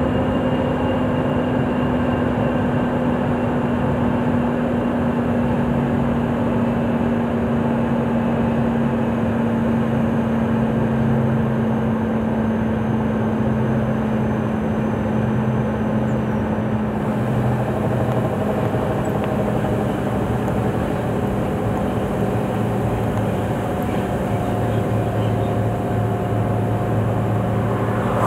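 Scania 164L 580's V8 diesel engine running steadily, heard from inside the cab on a downhill run, its pitch slowly falling over the stretch.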